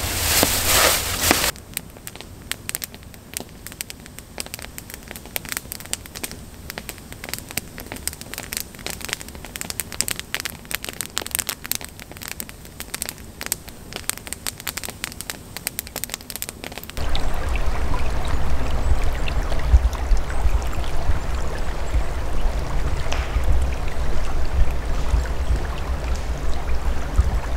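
Campfire crackling with dense, sharp snaps of burning wood. Past the middle it gives way to a steady rushing with a low rumble, as of wind through tall conifers.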